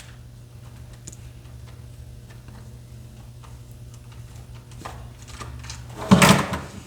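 Small scattered clicks and ticks of a screwdriver and fingers working on the plastic shell of an original Xbox controller while its back screws are taken out, then a louder clatter of plastic being handled about six seconds in, over a low steady hum.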